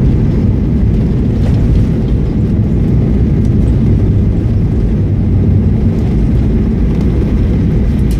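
Loud steady low rumble in the cabin of a jet airliner rolling out on the runway after touchdown, its ground spoilers raised: engine noise and the wheels running on the tarmac.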